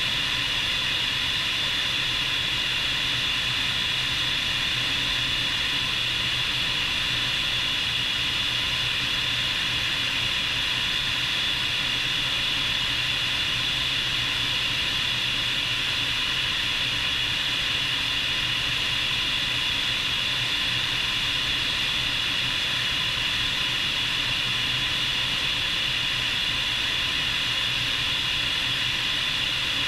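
Bell 430 twin-turbine helicopter running steadily: a continuous turbine whine and rotor noise with a high hiss, heard from outside the aircraft.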